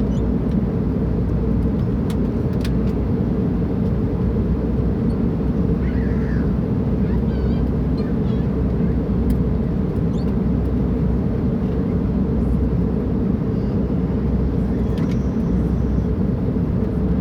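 Steady cabin noise of an airliner in flight: a constant low rumble of engines and rushing air.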